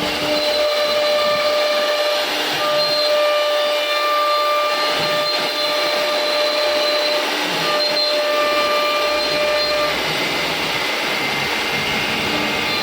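CNC router carving a design into a door panel: the spindle's steady whine, several held tones that drop out and return every few seconds, over the hiss of the cutting.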